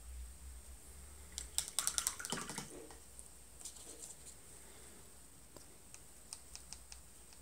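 Light clicks and taps of a small paintbrush: a quick flurry with some rustling about two seconds in, then scattered single clicks as the brush is wiped on a cloth and dabbed into the pans of a watercolour box.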